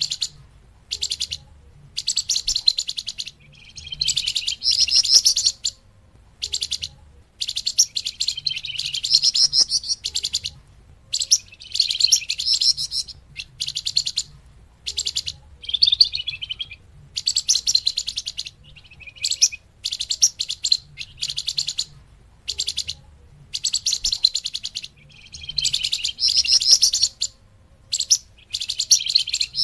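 Small songbird known in Indonesia as the flamboyan, calling in high, rapid chattering trills. The trills come in repeated bursts of one to two seconds with short pauses between them, as played for a bird-lure recording.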